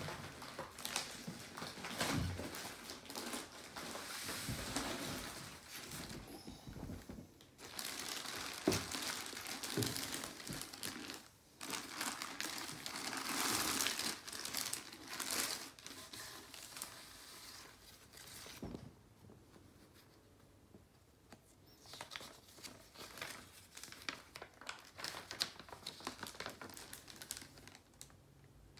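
Cardboard box and a clear plastic bag being handled during unpacking: crinkling and rustling in bursts, with a few knocks, growing quieter in the last third.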